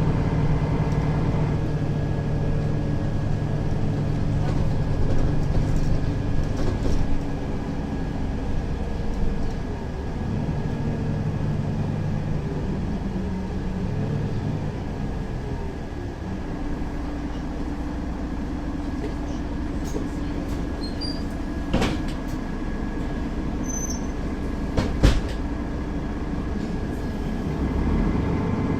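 Mercedes-Benz Citaro facelift city bus driving, heard from inside: its diesel engine runs steadily, with the engine pitch shifting and dropping partway through, and two sharp knocks later on.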